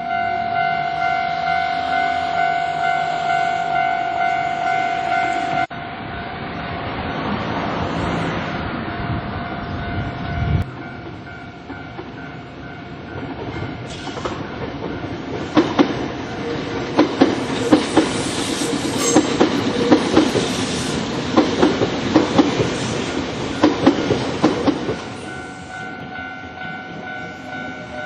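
Japanese level-crossing warning bell ringing its steady electronic clang, cutting off suddenly about six seconds in. An electric train on the Nankai Koya Line then approaches and runs through the crossing, its wheels clacking over the rail joints in a regular rhythm for about ten seconds. The crossing bell is heard again faintly near the end.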